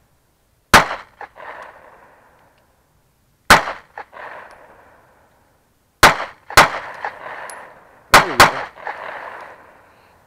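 9mm Taurus 709 Slim pistol fired six times, spaced slowly: two single shots a few seconds apart, then two quick pairs. Each shot is followed by a short rolling echo.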